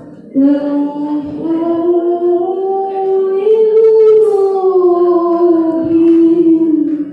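A boy reciting the Quran in the melodic tilawah style, holding one long ornamented phrase after a brief breath at the start, the pitch rising around the middle and falling away as the phrase closes near the end.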